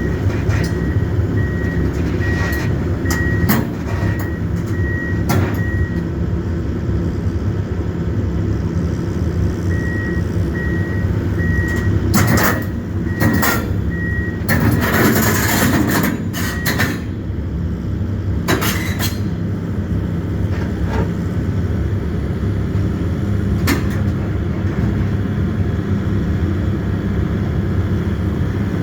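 Kobelco excavator's diesel engine running steadily while it is unloaded, with a high beeping travel alarm sounding in two stretches, near the start and in the middle. Scattered metal clanks throughout, and a loud burst of hissing noise about halfway through.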